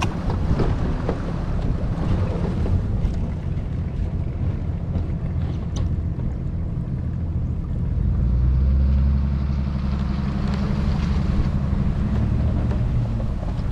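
Engine running steadily, with wind buffeting the microphone; the engine note grows louder about eight seconds in.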